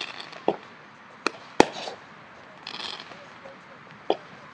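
Aerial firework shells bursting: four sharp bangs spread over a few seconds, the loudest about a second and a half in.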